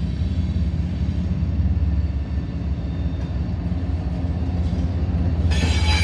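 Diesel-electric locomotive (a GE AC4400CW, UP's AC45CCTE) rumbling steadily as it approaches, growing gradually louder. About five and a half seconds in, a sudden burst of high-pitched noise joins in as the lead unit comes alongside.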